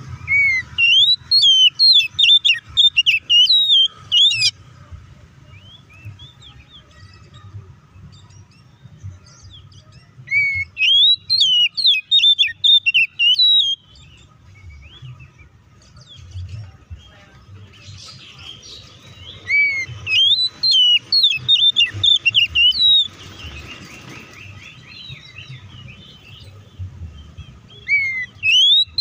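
Oriental magpie-robin singing loudly in bouts of fast, rising-and-falling whistled and chattering notes, three bouts a few seconds apart with a fourth starting near the end.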